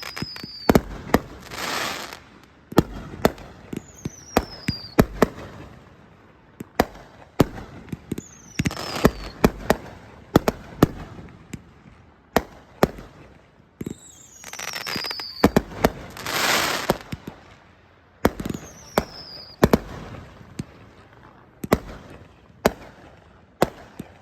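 A fireworks display going off nonstop: a rapid, irregular run of sharp bangs, with a whistle falling in pitch every few seconds and a few longer hissing swells about two seconds in, around nine seconds in and around fifteen to seventeen seconds in.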